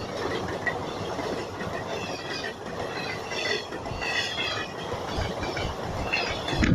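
Indian Railways train running past, its wheels rumbling steadily over the track, with short high-pitched squeaks now and then.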